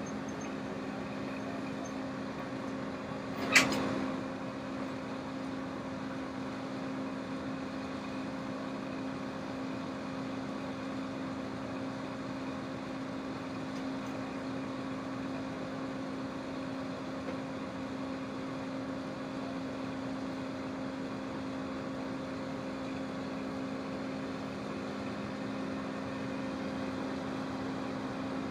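Engine of a septic-tank delivery truck running steadily as a hum while it works its lift to set the tank. One sharp knock comes about three and a half seconds in.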